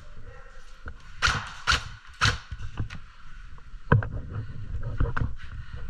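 Several sharp cracks of airsoft guns firing and BBs striking, irregularly spaced, over a run of low thumping footsteps.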